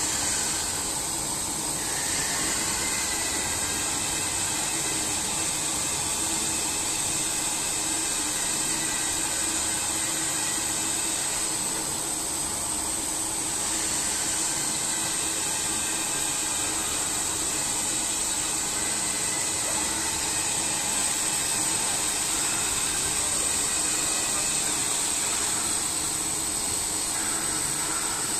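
GooDa TH-460NC twin-head duplex milling machine running steadily, its two opposed face-milling cutters machining both sides of a metal block at once. A constant high whine runs over the machine noise, with extra tones added from about two to thirteen seconds in.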